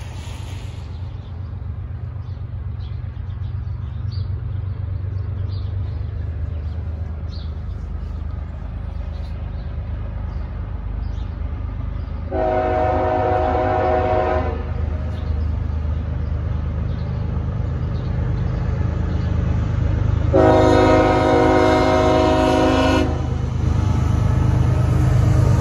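Approaching CSX diesel locomotive at the head of a manifest freight train, its engine rumble growing steadily louder. It sounds its air horn twice, a chord of several tones: a blast of about two seconds roughly twelve seconds in, and a slightly longer one about eight seconds later.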